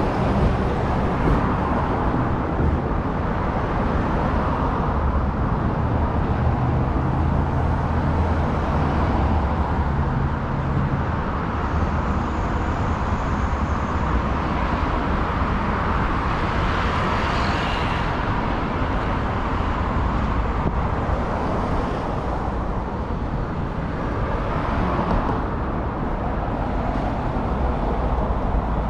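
Steady city road traffic: cars and other motor vehicles passing on a busy street, an even wash of tyre noise with a low engine hum.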